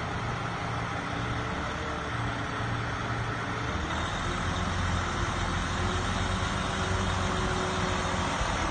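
Fire engine's diesel engine running as the truck rolls slowly past, a steady low rumble that grows a little louder about halfway through as it comes closer.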